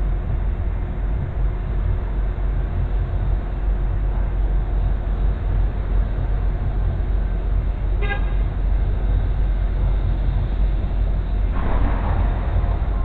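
A vehicle engine idling with a steady low rumble. A short horn toot sounds about eight seconds in, and a louder noise swells in near the end.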